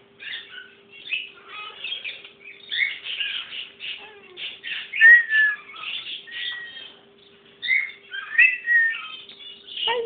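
Caged parrot chattering and whistling: a run of short chirps and sliding whistle notes, the loudest a clear falling whistle about five seconds in. A faint steady hum runs underneath.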